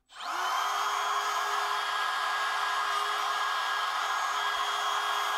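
Compact wood router motor switched on, spinning up within a fraction of a second and then running at a steady high speed with an even whine.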